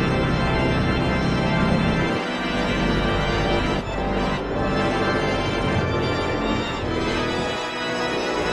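Effects-processed music made of sustained organ-like chords, holding a steady level.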